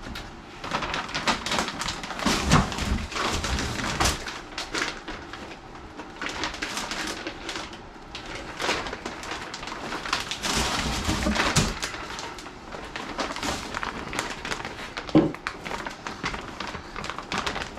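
Continuous irregular rustling, scraping and clunking of parts and packaging being handled, with a sharp knock about fifteen seconds in.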